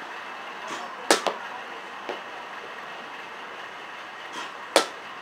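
Two sharp knocks, about a second in and near the end, with a fainter one around two seconds, over a steady background hiss.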